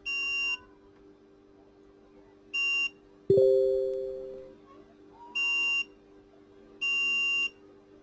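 Bench multimeter's continuity beeper sounding four times, about half a second each: the probed power-button pin connects to ground while the power button is pressed. About three seconds in, a louder ringing ding with two low tones fades out over about a second.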